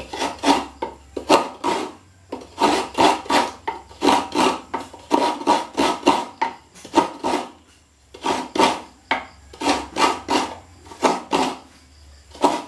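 Coconut half being grated on the blade of a wooden coconut-grater stool (kudkuran), scraping the last of the meat from the shell. Short rasping strokes, about two a second, in runs with brief pauses.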